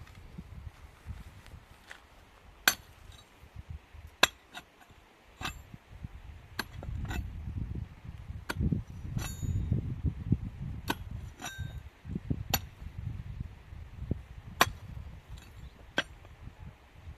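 Irregular sharp knocks and clinks, about a dozen scattered unevenly, some ringing briefly like metal, over a gusty low rumble of wind on the microphone.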